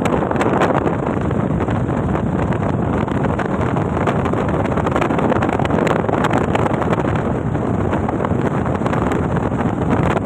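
Steady rush of wind and road noise from a moving vehicle at speed, with wind buffeting the microphone.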